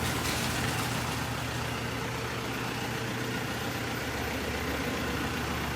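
Steady low mechanical hum with an even hiss over it, like an engine idling.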